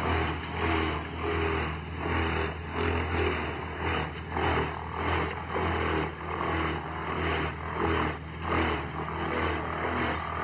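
Bruks mobile wood chipper running under load as whole trees are fed in: a steady engine drone with chipping noise that swells and eases a little faster than once a second.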